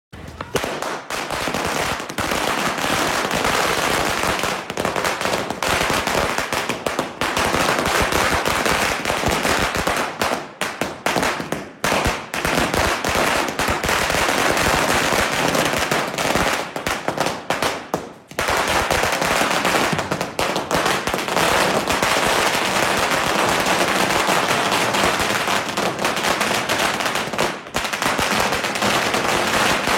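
Dense, continuous rapid crackling and popping that starts abruptly, with brief lulls about ten, twelve and eighteen seconds in.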